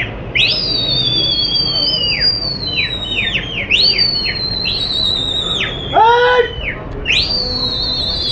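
Pigeon flyer's shrill human whistles at the flying pigeon flock, used to keep the birds up and circling. There are three long held whistles, each dropping off sharply at the end, with short chirped whistles between them and a brief shouted call about six seconds in.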